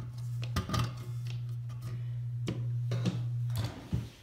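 A few separate knocks and clicks of a plastic adapter and a stainless steel dog bowl being handled on a tabletop, over a steady low hum.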